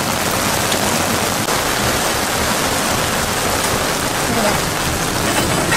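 Heavy rain pouring onto open water, a steady, dense hiss of countless drops striking the surface.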